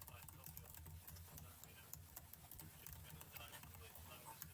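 Faint computer keyboard typing: many quick, irregular keystroke clicks.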